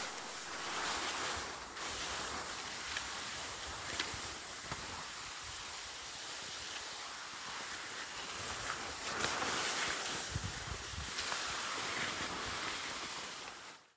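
Steady hiss of skis sliding over snow on a descent, with wind buffeting the microphone in a few low gusts and a few light clicks.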